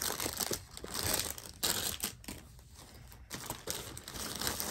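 Thin plastic packaging bag crinkling and rustling in the hands as it is handled and opened, in irregular crackles that ease off for a moment around the middle.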